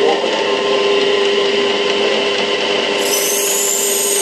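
Knife-grinding wheel turning on its shaft with a steady hum. About three seconds in, a steel knife blade is pressed to the wheel's rim and a high, wavering grinding squeal joins in.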